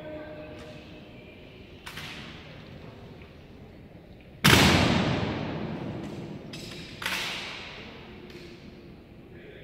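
Honor guards' drill: several sharp strikes on a hard floor, the loudest about halfway through, each ringing on in a long hall echo.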